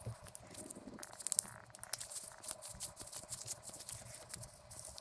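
Light handling noises: faint rustling and a scatter of small clicks, thickest about a second in, as plastic tire levers are pushed into a neoprene tool pouch.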